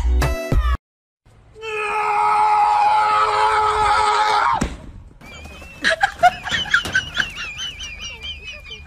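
A high-pitched scream held for about three seconds, ending in a sudden falling slide, followed by a string of short, wavering high squeaks and yelps.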